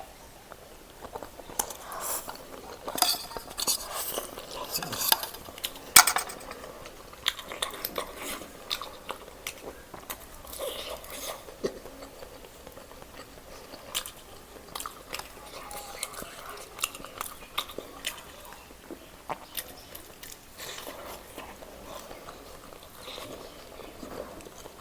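Someone eating black bean noodles: utensils clink irregularly against the dish between bouts of chewing, with the sharpest clink about six seconds in.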